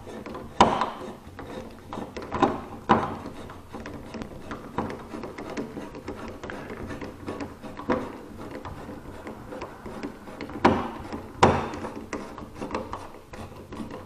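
Screwdriver driving a light switch's mounting screw into a metal electrical box: sharp clicks and scrapes of the blade and screw at uneven intervals, about ten over the span.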